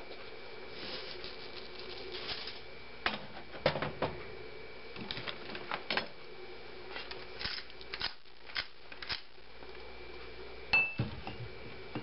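Salt and pepper shakers being shaken over a fried egg and set down on the stove top: scattered light clicks and taps.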